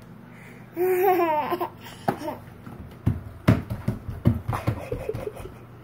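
A short, high laugh-like vocal with a falling pitch about a second in, followed by several scattered knocks and thumps.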